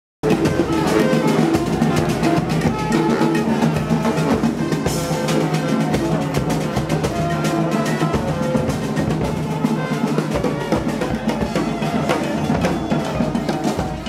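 Street brass band playing as it marches past: saxophones, sousaphone and tuba over bass drums and cymbals, with a steady, dense drum beat.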